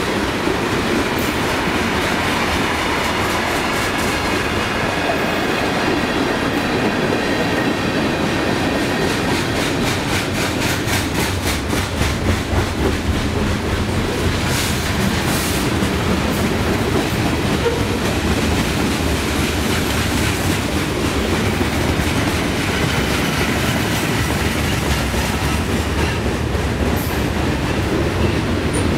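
Freight train cars rolling past at close range: a steady rumble of steel wheels on the rails, with a regular clickety-clack as the wheel sets pass.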